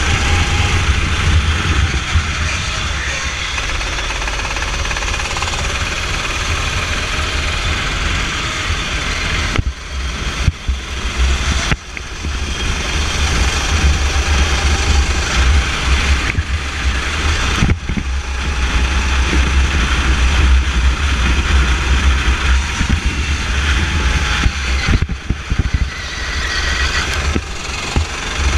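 Racing kart engine running at speed, heard from onboard the kart, with heavy wind and vibration rumble on the microphone. The sound dips briefly a few times.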